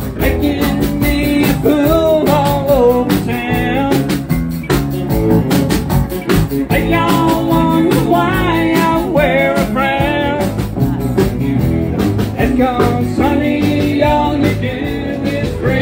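Live band playing: a woman singing into a microphone over acoustic guitar, electric bass and drum kit, with a steady beat.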